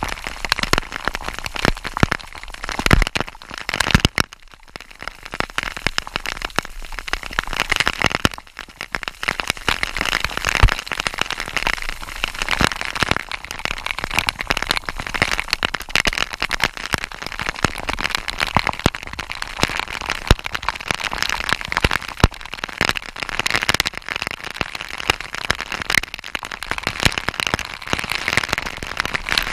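Waterfall water splashing in a dense, rain-like patter of drops, with the level dipping briefly about four and eight seconds in.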